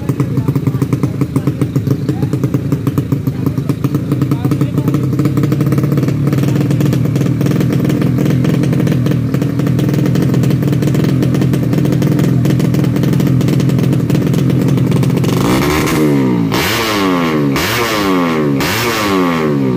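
Tuned 130cc four-stroke underbone drag bike engine running steadily with a fast, even pulse, then about three-quarters of the way through it launches and revs up in four rising sweeps, each cut short by an upshift.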